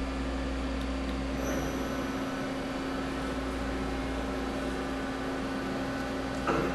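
Doosan Puma 400LB CNC lathe running under power: a steady machine hum with a faint high whine, and a brief clunk near the end.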